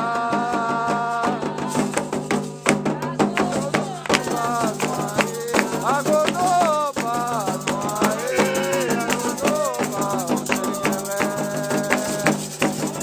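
Candomblé ritual music: hand drums and a rattle keeping a fast, dense rhythm, with voices singing over it.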